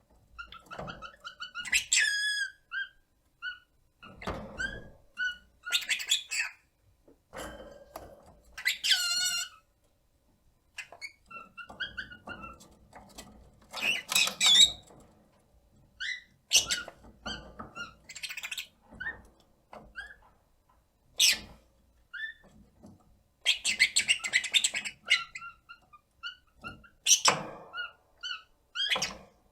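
Rosy-faced lovebird calling: loud, shrill contact calls and short chattering chirps come in bursts, with brief pauses between them.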